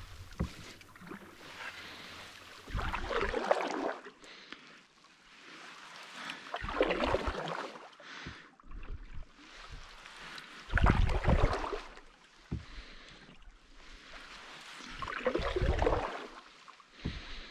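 Canoe paddle strokes in shallow, mucky water, about one every four seconds, each a surge of splashing and swirling water with a low bump in it, and quieter water sounds between strokes.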